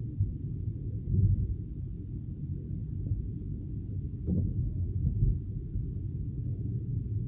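Low, muffled rumble of a car's cabin while driving on a wet road, with a light knock about four seconds in.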